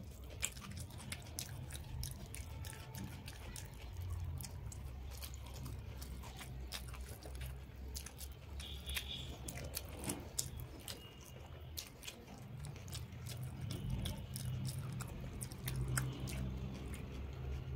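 Close-miked chewing of a mouthful of rice and mashed food eaten by hand, with many small wet mouth clicks throughout.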